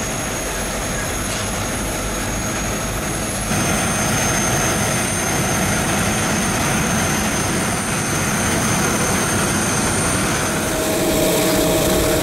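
Jet airliner noise: a steady rushing sound with thin high whines. It steps up in loudness about three and a half seconds in, and a steady mid-pitched whine joins near the end.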